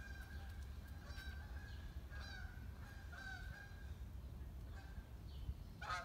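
Short pitched animal calls, repeated about once a second, with a louder call near the end.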